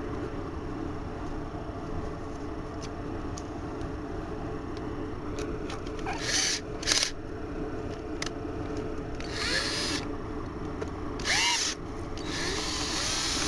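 Power drill running slowly, spinning a rotary dryer-vent cleaning brush on its rods as the line is backed out of the vent duct and worked back and forth to loosen lint. A few short bursts of hiss come about six, nine and a half and eleven seconds in, and a steadier hiss near the end.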